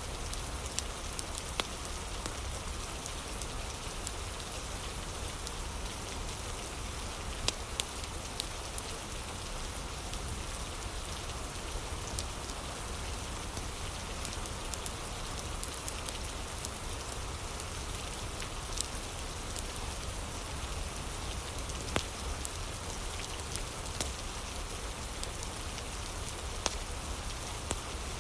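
Steady rain mixed with a crackling wood fire: an even hiss of rain over a low rumble, broken every few seconds by sharp pops and clicks.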